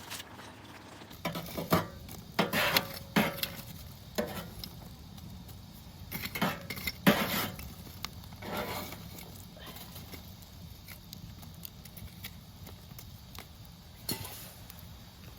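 Clinks, knocks and scrapes of utensils being handled while foil-wrapped sweet potatoes are set into a wood fire. They come in two bursts of several strokes each, with a single knock near the end.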